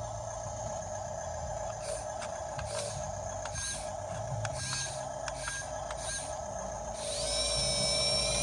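Small electric motor and gearbox of a toy RC bulldozer whining steadily, with mechanical clicking and scraping. The whine cuts out briefly several times in the middle and gets louder near the end.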